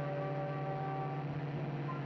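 Sports car engine running steadily at speed, mixed with held notes of an orchestral film score.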